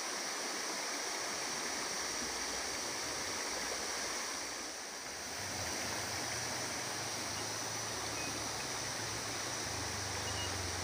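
Steady rushing water of a waterfall and stream, with a low rumble joining about halfway through.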